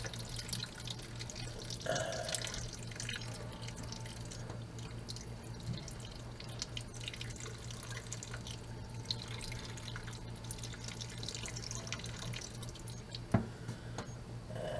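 Water trickling and dripping in a thin stream from the holes in the lid of a small plastic container into a stainless steel sink, as the water is poured off. A single sharp knock near the end.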